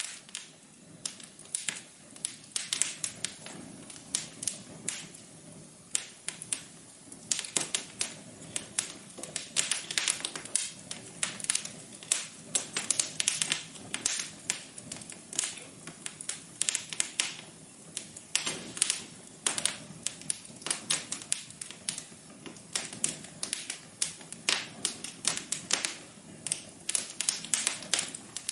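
Wood fire crackling in a fireplace: a dense, irregular run of sharp snaps and pops over a soft steady hiss.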